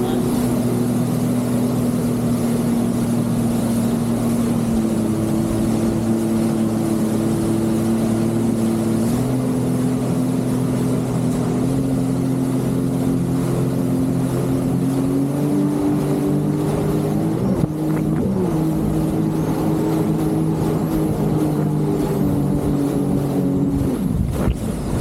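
Jet ski engine running steadily at cruising speed, its pitch stepping up or down slightly a few times as the throttle changes. Just before the end the engine note falls away sharply as the throttle is released.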